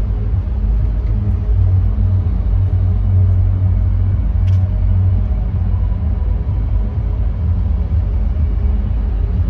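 Steady, loud low rumble of a city street, with a faint low hum running under it and one short click about four and a half seconds in.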